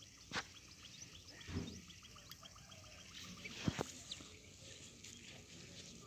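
Desi quail (batair) calling faintly in a rapid run of short, high chirps, with a few sharp knocks, the loudest about four seconds in.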